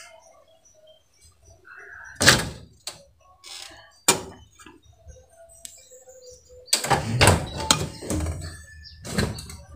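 Kitchen cabinet doors being opened and shut, knocking against their frames: sharp knocks about two and four seconds in, a burst of clattering thuds around seven to eight seconds, and another near the end.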